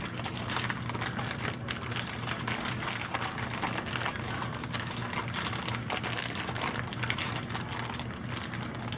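Plastic zip-top bag crinkling and crackling in irregular small clicks as hands squeeze and knead a whole raw chicken in marinade inside it, mixing the marinade around.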